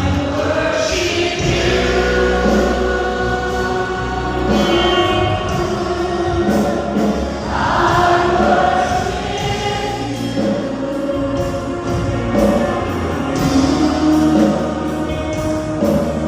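Christian worship music: a choir singing with instrumental backing.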